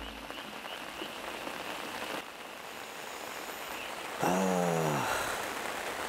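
Steady rain falling on a pond's surface. About four seconds in, one loud animal call slides down in pitch for under a second.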